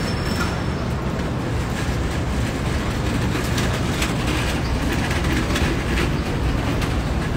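Steady low rumble of city traffic and street noise.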